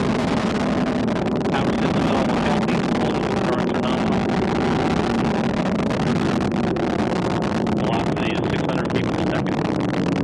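Antares rocket's first stage, its two AJ26 kerosene–liquid oxygen engines, heard from the ground during ascent: a steady low rumble with crackling running through it.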